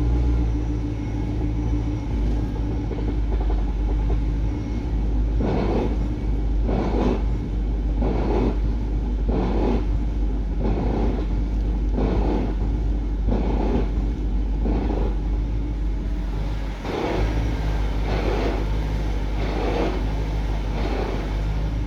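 A car engine idling with a low rumble. From about five seconds in, a short knock repeats about every second and a half, with one pause. These knocks fit the cracking of a BMW E60/E63 active steering unit as the wheel is turned, a fault that has survived replacement of the steering actuator, wiring harness, electric lock, motor and control unit.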